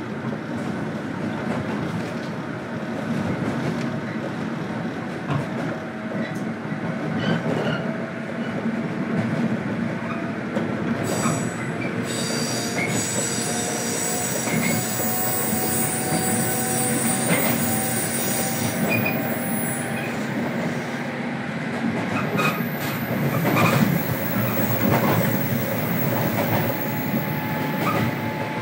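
103 series electric train heard from inside a motor car while running: steady rolling and motor noise with scattered rail-joint clicks. A high wheel squeal sounds from about 11 to 20 seconds in.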